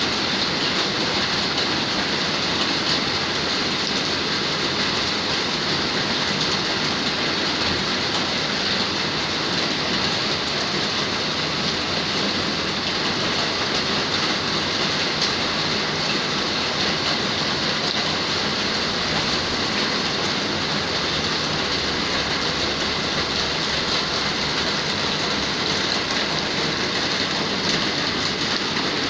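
Heavy rain pouring down in a steady, even hiss that keeps the same level throughout.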